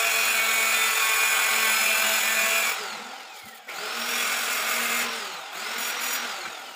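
A handheld electric power tool's motor running in three bursts, the first the longest. Each burst ends with the pitch falling away as the motor spins down, and the second and third begin with a quick spin-up.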